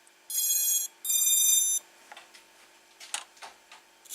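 Two high electronic beeps, the second a little longer, from a hexacopter whose SP Racing F3 EVO flight controller keeps disarming as soon as the throttle is touched, followed by a few faint clicks.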